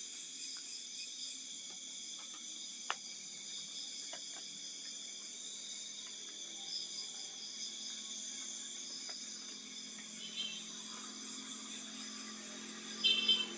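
Steady hiss of background noise with a few faint clicks, and a short burst of high chirps near the end.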